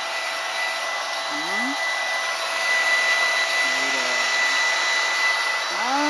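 Hand-held hair dryer blowing steadily: a constant rush of air with a steady high whine from its motor.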